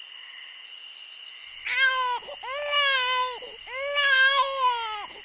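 Infant crying: after about a second and a half of faint hiss, a run of loud, high wails, each rising then falling in pitch, four in quick succession.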